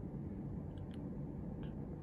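Steady low background rumble heard from behind a closed window, with a couple of faint clicks about a second in and again shortly after.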